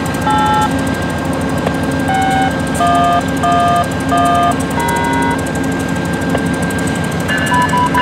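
The GE P42DC diesel locomotive of a VIA Rail passenger train runs steadily at the platform. Over it comes a string of short touch-tone beeps of varying pitch, like telephone keypad tones, in clusters, with three quick ones near the end.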